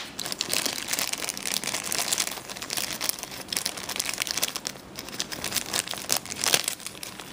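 Clear plastic packaging bag crinkling as it is handled, with an audio cable and 3.5 mm plug inside, with a sharper crackle near the end.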